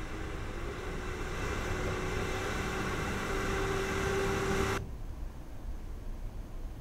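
Lorry engine running as it drives through flood water over a road, with the rush of churned water; the engine tone rises slightly and grows louder as it comes closer. It cuts off abruptly about five seconds in, leaving a fainter low rumble.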